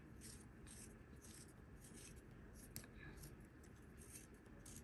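Faint scratchy rubbing, a few short strokes a second, as a stylus pen's two barrel halves are twisted together to lock the battery inside.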